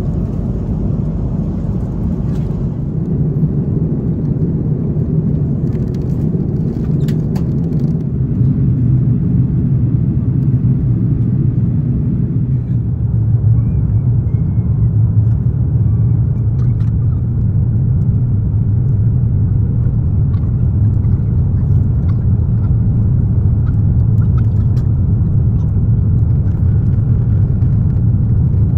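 Airbus A330-300 airliner cabin noise from a window seat over the wing on approach: a steady, loud low rumble of engines and airflow, turning slightly deeper about eight seconds in, with a few faint clicks.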